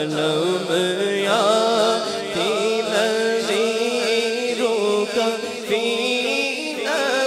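A man singing an Urdu naat (devotional praise poem) into a microphone, his voice winding through long ornamented phrases, over a steady low drone that holds throughout.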